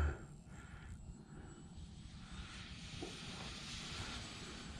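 Distant RC airplane's electric motor and propeller flying high overhead: a faint whine over hiss that swells for a couple of seconds in the middle. A brief voice sound comes right at the start.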